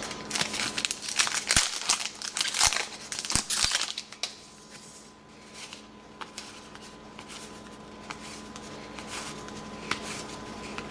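Crinkling of a trading-card pack wrapper being handled for about the first four seconds, then quieter handling of cards with a few light clicks.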